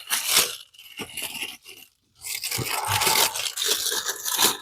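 Packing material being handled as a boxed statue piece is unpacked: crunching and scraping in short bursts, then a longer stretch after a brief pause about two seconds in.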